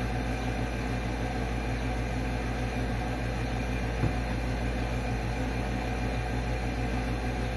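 Steady low hum and hiss of room background noise, with one faint tap about four seconds in.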